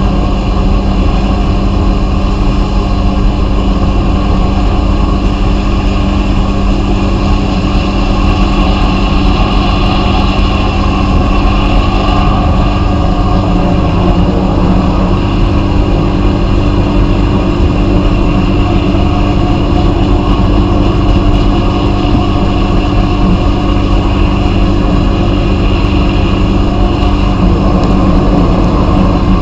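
Vapor blasting cabinet running steadily: a constant hiss of the blast over an unchanging machine hum.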